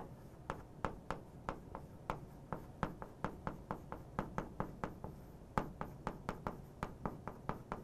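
Chalk tapping against a chalkboard while Korean characters are written: a steady run of short, sharp taps, about three or four a second.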